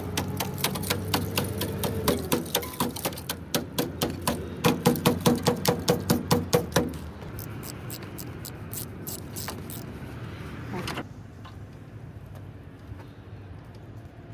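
Rapid metal-on-metal blows, about four to five a second: a chisel tool hacking at corroded sheet steel on a bus body panel. The blows stop about seven seconds in, and fainter clicking from a small ratchet wrench turning a bolt follows.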